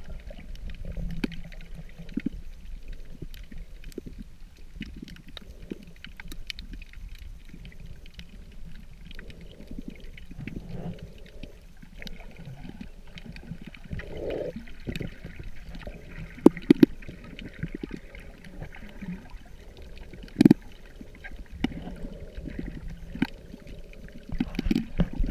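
Muffled underwater sound picked up by a camera below the surface: water sloshing and gurgling, with a steady low rumble and many small scattered clicks and crackles. A few sharper, louder knocks come in the second half.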